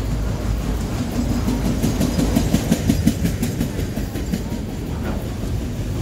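Norfolk Southern freight train of autorack cars rolling past, steel wheels clacking over rail joints in quick repeated clicks over a steady low rumble.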